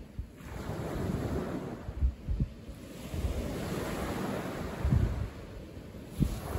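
Small waves breaking and washing up a pebble beach, the surf swelling and falling away twice. Wind buffets the microphone in low thumps.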